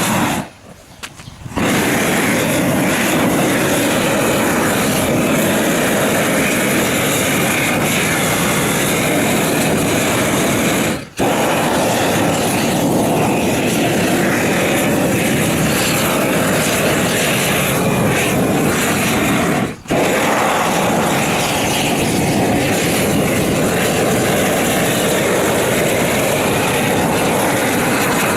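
Propane roofing torch burning with a loud, steady rushing roar of gas flame. The noise drops out briefly twice along the way.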